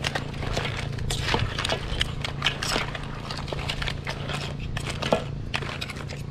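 Hard crab shells clattering and knocking against a large metal wok as a wooden spatula stirs and turns cooked crabs with corn in sauce: irregular clicks, knocks and scrapes, over a steady low hum.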